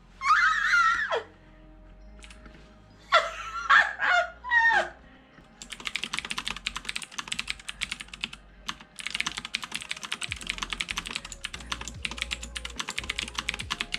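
Fast typing on a custom mechanical keyboard with clicky green switches: a rapid stream of sharp key clicks that starts about five and a half seconds in, with a short pause around the middle.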